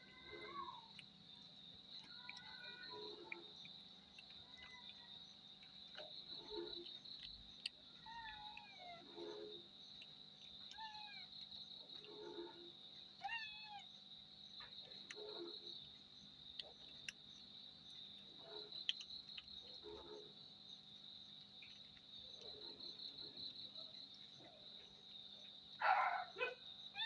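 Cat meowing again and again, faintly, a call every second or two, many of them falling in pitch, with a louder burst of calls near the end. A steady high insect chirring, like crickets, runs underneath.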